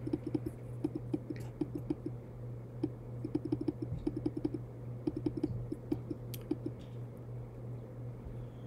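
Typing on a computer keyboard: quick irregular runs of keystroke clicks with short pauses between them, over a low steady hum.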